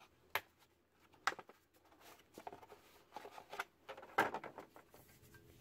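Hard plastic torque wrench case being handled and moved by gloved hands: a few sharp clicks and knocks with softer rubbing and rustling between them, the loudest knock about four seconds in.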